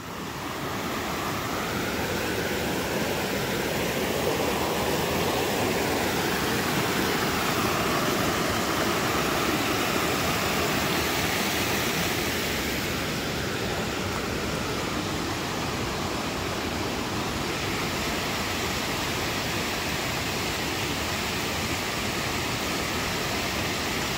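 Mountain creek rushing over rocks through snowmelt, a steady loud wash of white water that fades in at the start.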